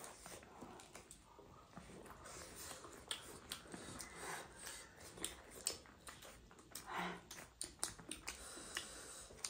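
Faint eating sounds from chicken biryani eaten by hand: chewing and lip smacks, with many small, sharp clicks scattered throughout.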